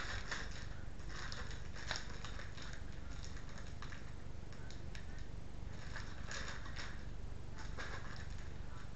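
Clear plastic parts bag crinkling and rustling as it is handled, in several short bursts over a steady low hum.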